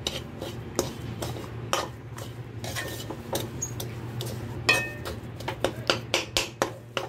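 Metal spatula stirring a crumbly semolina-coconut mixture in a stainless steel kadhai, with irregular clinks and scrapes against the pan that come faster and louder in the second half. A steady low hum runs underneath.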